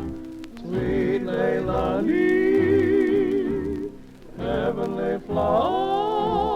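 Hawaiian-style music: long held melody notes with a wavering vibrato over a steady pulse of bass notes.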